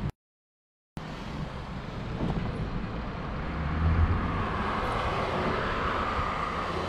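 Steady street traffic with a low engine hum that grows louder about four seconds in; the sound cuts out completely for about a second near the start.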